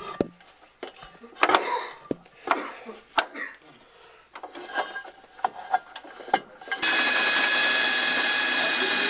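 Light metal clinks and knocks from parts being handled, then about seven seconds in a cordless drill starts up and runs at a steady speed.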